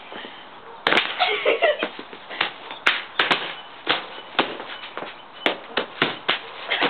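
Bubble wrap being popped by hand: sharp, irregular pops, about twenty of them in quick succession, after a quieter first second.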